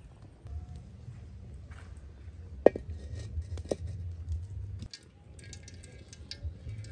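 A metal wok clinks twice, about a second apart, as it is set down on the bricks over a wood fire. Near the end, oil starts to crackle and sizzle as it heats in the wok.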